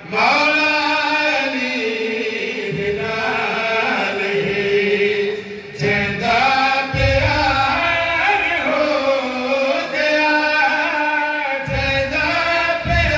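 A man's voice chanting a devotional qasida in long, melodic held lines, the pitch wavering and sliding within each drawn-out phrase.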